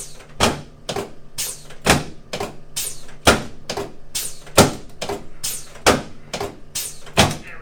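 A steady series of sharp knocks or clacks, about two a second with every other one louder, that stops shortly before the end.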